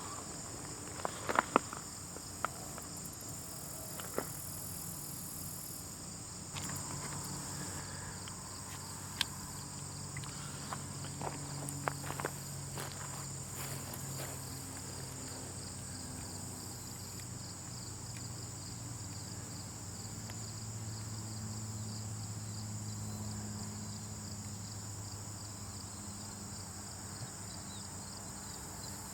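Steady high insect chirring, cricket-like, with scattered small clicks and ticks in roughly the first half, over a faint low hum.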